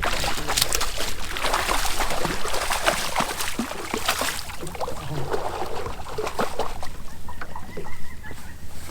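Water splashing and crackling amid heavy vegetation, busiest in the first half, over a steady low hum. A faint thin tone comes in near the end.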